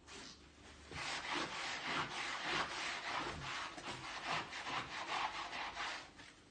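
Latex palm of a goalkeeper glove being rubbed hard back and forth on a carpet in an abrasion test: a rapid, scratchy scrubbing of quick strokes that starts about a second in and stops near the end.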